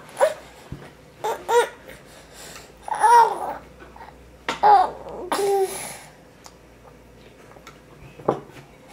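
A 12-month-old baby babbling in short, high-pitched vocal sounds, about five of them over several seconds, then a single sharp tap near the end.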